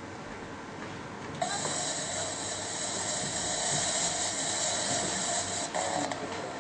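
A steady hiss, like rushing water or spray, from the soundtrack of a video played over loudspeakers. It starts suddenly about a second and a half in and drops away near the end.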